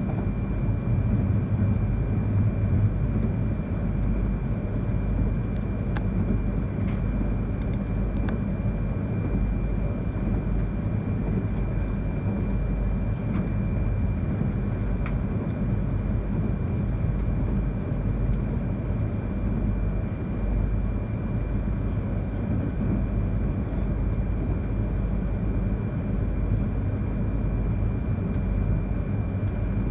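Cabin noise inside a moving E3 series Yamagata Shinkansen train: a steady low rumble from the running gear, with a thin steady high tone and a few faint clicks.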